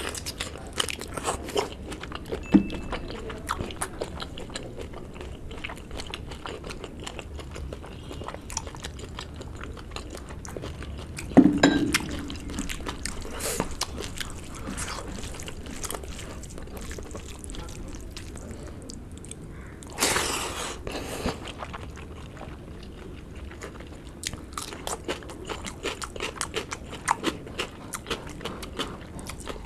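Close-miked eating: a person chewing and smacking lips on pork curry, rice and greens eaten by hand, with many small wet clicks of mouth and fingers. One louder knock about a third of the way in and a brief rush of noise about two-thirds in.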